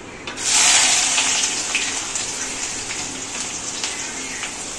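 Hot oil in a kadhai sizzling as chopped garlic is scraped in for the tadka of a kadhi. The hiss jumps up loudly about half a second in, then slowly settles.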